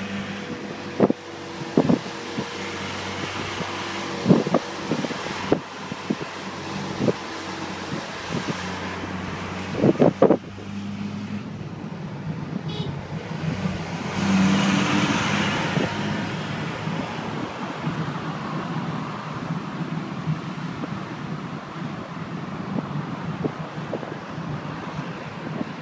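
Inside a moving taxi: a steady engine hum and road noise, with several sharp knocks in the first ten seconds and a louder rush of noise about 14 to 16 seconds in.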